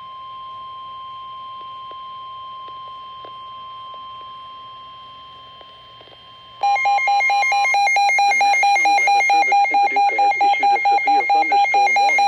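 NOAA Weather Radio warning alarm tone, a faint steady single tone; about six and a half seconds in, a weather radio receiver's loud alarm starts, beeping about four times a second, with the broadcast voice faint beneath it. The alarm signals a severe thunderstorm warning being issued.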